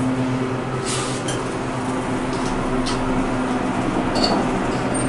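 Thyssenkrupp elevator cab humming steadily while its sliding doors close, with a few light clicks and knocks from the door mechanism.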